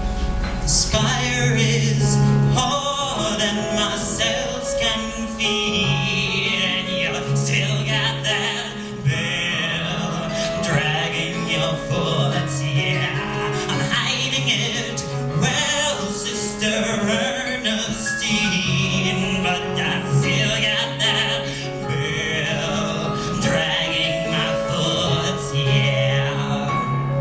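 A song performed live: a solo voice singing with wavering, held notes over an instrumental accompaniment of sustained bass and mid-range notes.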